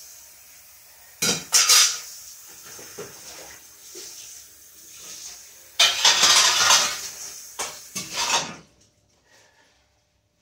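Metal electric-stove drip pans clattering and scraping as they are handled and dried, in a few bursts with the loudest about six seconds in.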